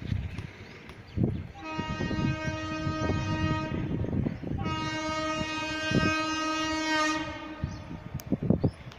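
Horn of an Indian Railways WAP4 electric locomotive sounding two long steady blasts of about three seconds each, the second following right after the first, from the approaching train.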